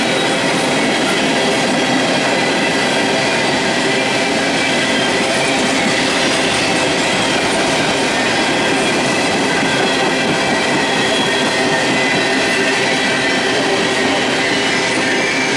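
Empty steel coal hopper cars of a freight train rolling past close by: a loud, steady rush of wheels on rail, with thin steady high squealing tones over it.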